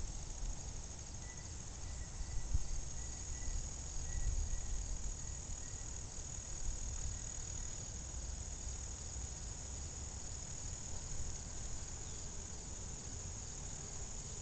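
Steady high-pitched insect chorus, with a faint repeated chirp over the first few seconds, over a low rumble.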